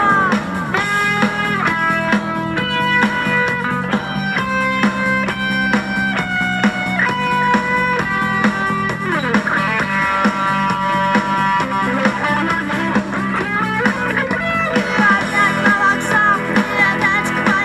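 Instrumental break of a rock song: a lead electric guitar plays a melody of held notes over a steady rock backing, with a slide down in pitch about nine seconds in.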